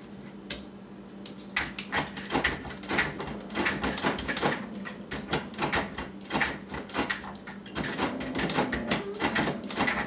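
A dog's claws scratching and pawing at a closed door, a rapid, irregular clatter of clicks and scrapes that starts about a second and a half in, as the dog tries to push the door open.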